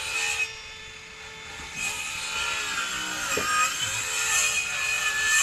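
Reciprocating saw cutting wood, its motor whining over the rasp of the blade. It stops about half a second in and starts again a little under two seconds in, its pitch rising and falling as it works through the cut.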